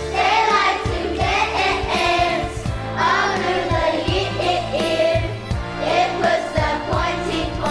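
Choir singing a holiday song over an instrumental accompaniment with a steady beat.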